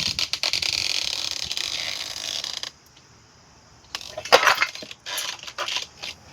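Rapid mechanical clicking for about two and a half seconds, then after a short pause a few sharp clinks and knocks of hardware being handled.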